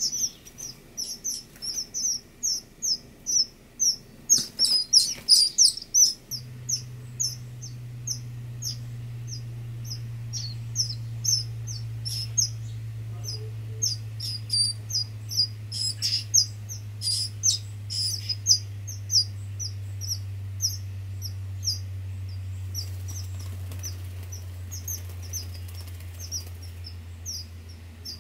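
Eastern kingbird nestlings begging: short, high chirps repeated about two or three times a second, loudest in the first six seconds and fainter after. About six seconds in, a low steady hum starts and slowly drops in pitch.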